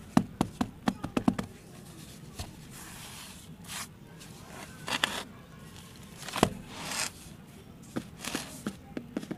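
Hands patting loose soil packed into a plastic mould: a quick run of about a dozen dull pats in the first second and a half. Then soil is scraped and rustled a few times, with a single thud about six and a half seconds in and a few more pats near the end.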